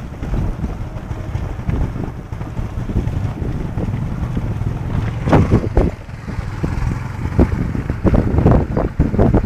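Motorcycle running along a rough dirt track, its engine under heavy wind buffeting on a phone's microphone. The buffeting gets louder and more jolting about five seconds in and again near the end.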